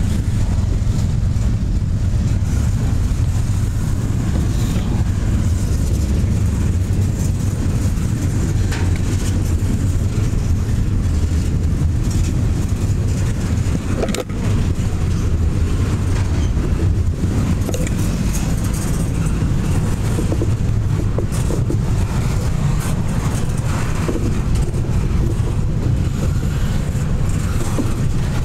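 Double-stack container train's well cars rolling past: a steady heavy rumble of steel wheels on rail, with scattered clicks and clanks.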